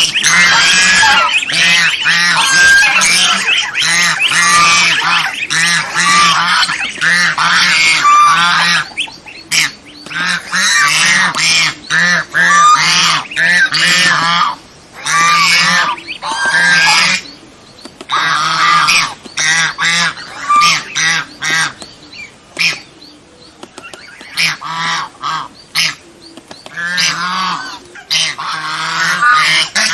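Domestic swan geese (Chinese geese) honking loudly and repeatedly, calls overlapping one another, with a brief lull about three-quarters of the way through.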